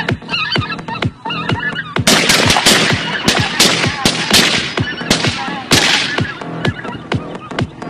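A rapid volley of shotgun shots, about ten sharp cracks in quick succession between about two and six seconds in, from hunters firing at ducks in flight, over electronic background music with a steady beat.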